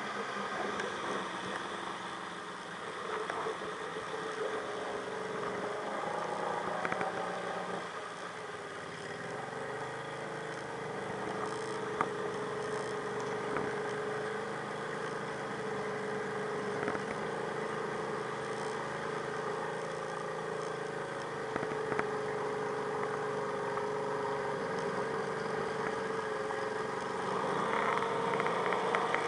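Off-road vehicle engines of an ATV and a side-by-side idling steadily while bogged in deep mud, with a few sharp clicks.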